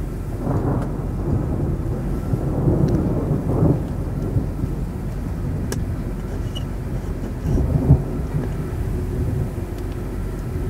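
Thunder from a supercell thunderstorm rumbling in several swells over a steady low rumble.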